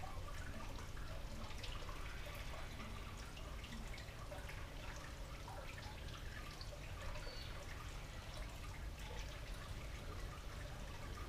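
Quiet background ambience: a steady low rumble with faint scattered ticks, like light dripping or trickling.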